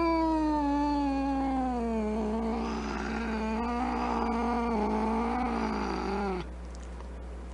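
Angry cat's long, drawn-out low yowl that wavers slowly in pitch, turns harsher and rougher partway through, and cuts off suddenly near the end.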